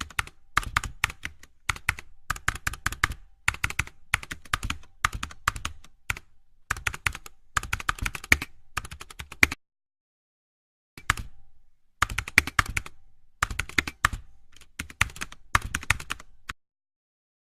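Bursts of rapid typing-like clicking, broken by a pause of about a second and a half near the middle and stopping shortly before the end.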